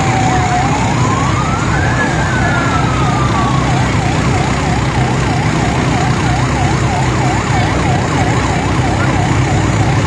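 Two fire-engine sirens sounding together. One warbles fast, about three rises and falls a second. The other is a slow wail that falls, climbs and falls again, then dies out about four seconds in. A low engine rumble runs underneath.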